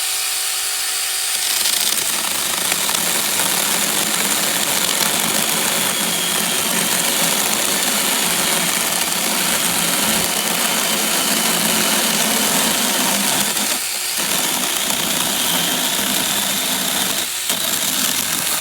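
Cordless 6-inch mini chainsaw running steadily at full speed, with two brief dips near the end.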